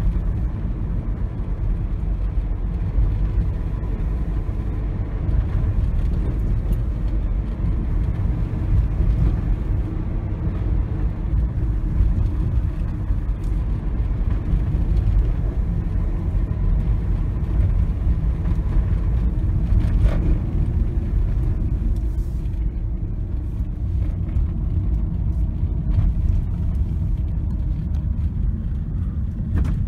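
Steady low rumble of a car driving, heard from inside the cabin: engine and tyre road noise at a constant speed.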